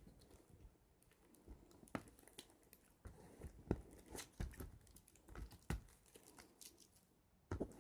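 A CD case being handled: scattered faint clicks and crinkling of plastic, one to three a second, with short pauses.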